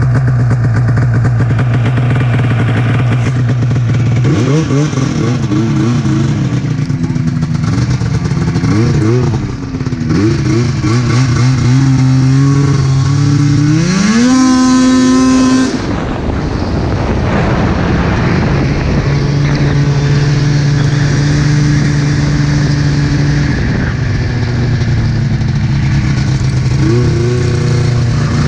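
Snowmobile engine running steadily at low speed, then revving up and down as the sled gets moving. About 14 seconds in it climbs to a high whine, drops back sharply a couple of seconds later, runs steadily at a cruising pitch, and rises again near the end.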